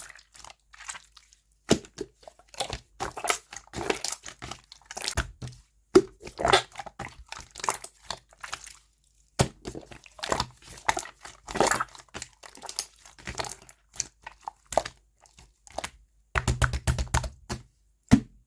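Clear slime being squeezed, pressed and stretched by hand, giving irregular sticky crackles, pops and soft thuds, with a quick run of rapid pops near the end.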